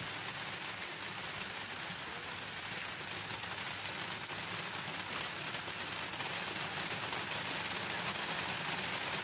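Steady outdoor hiss with a fine, continuous crackle, the open-air ambience of a football pitch picked up by a phone's microphone, with no distinct kicks or shouts standing out.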